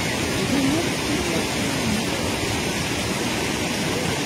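Steady rushing of river water, an even hiss without breaks.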